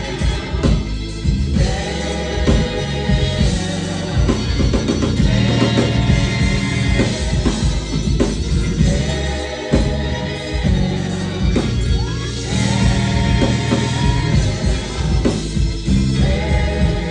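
Gospel choir singing in long held phrases over a live band, with drums and bass.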